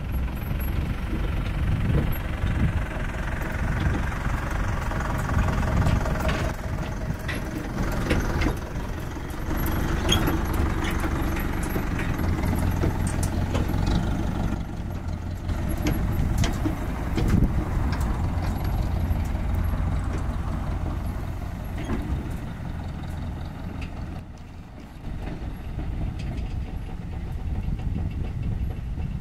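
John Deere 6920 tractor's diesel engine running steadily, with scattered metal clanks and knocks as the air seeder's folded wings are lowered hydraulically.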